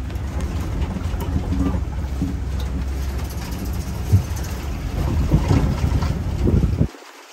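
Open-sided safari truck driving over a rough track: a low rumble of engine and wind buffeting the microphone, with scattered bumps and rattles. The low rumble cuts off abruptly near the end.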